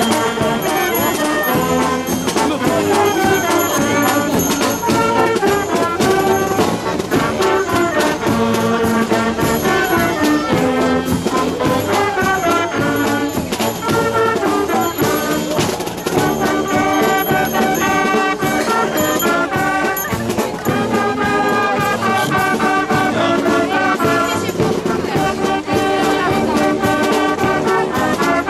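Music led by brass instruments, playing a melody in held notes.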